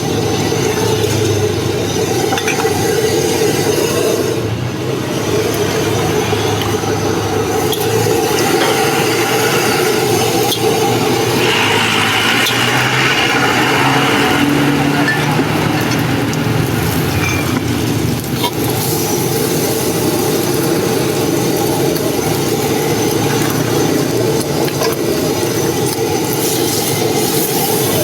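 Fried rice being stir-fried in a wok over a gas burner: a steady rushing burner noise with the metal spatula's scrapes and clinks, and a louder sizzle for a few seconds around the middle.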